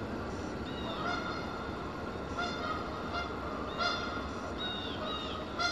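Canada geese honking: a string of short repeated calls at irregular spacing, over a steady rushing background noise.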